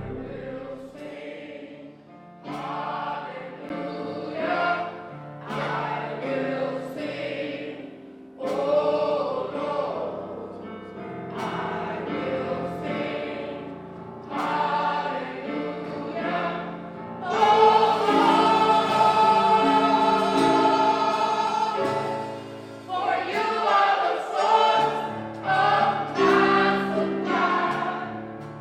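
A choir singing gospel music in phrases over sustained accompanying chords, swelling into a loud held chord a little past halfway.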